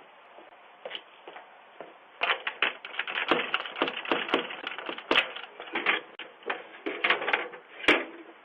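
A rapid, irregular run of crackles and crunches starting about two seconds in and stopping near the end, heard through a doorbell camera's tinny microphone.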